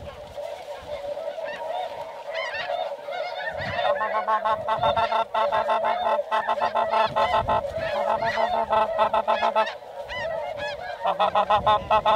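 Snow geese calling, a dense chorus of rapid honking calls that grows louder about four seconds in, eases briefly near ten seconds and swells again near the end.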